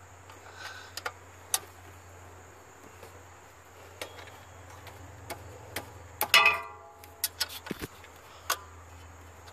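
Sharp metallic clicks and taps of a wrench working the alternator's mounting bolt and bracket, with a louder ringing clank a little after six seconds in, over a faint steady low hum.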